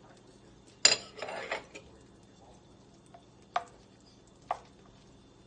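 Wooden spatula knocking and scraping against a frying pan as it pushes melting butter around: a sharp knock about a second in, a short scrape after it, then two lighter taps later on.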